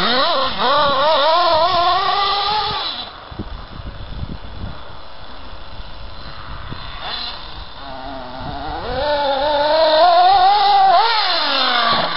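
Kyosho MP7.5 Sport 1/8-scale nitro buggy's small glow engine revving up and down, its pitch rising and falling with the throttle. It drops to a quieter, more distant running about three seconds in and comes back loud, revving again, around nine seconds in.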